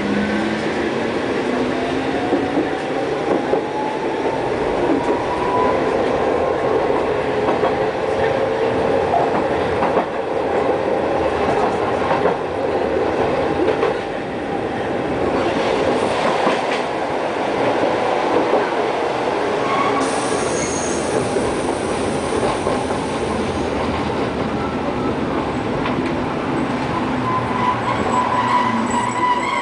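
Hankai Tramway streetcar running along street track, heard from on board: a steady rumble of steel wheels on rail, with a whine that rises in pitch over the first several seconds and a few clicks along the way.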